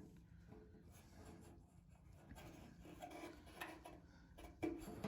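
Faint rubbing and light scraping, with a couple of soft knocks about three and a half and four and a half seconds in.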